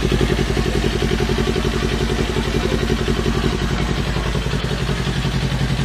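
Kawasaki Ninja 400's parallel-twin engine idling steadily through an RSJ R2 carbon slip-on exhaust, with an even, rapid exhaust pulse.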